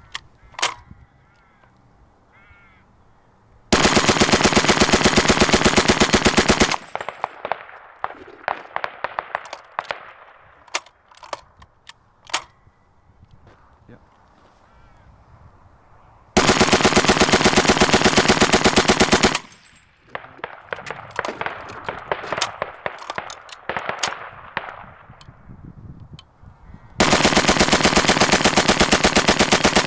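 .303 Vickers water-cooled machine gun firing three long bursts of about three seconds each, a steady rapid run of shots in each, at the rapid rate of fire. Quieter scattered shots and rattle fill the gaps between the bursts.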